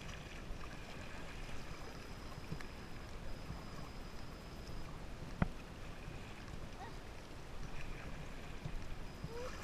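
Kayak paddling on a river: a steady wash of moving water and paddle strokes, with one sharp knock about five seconds in.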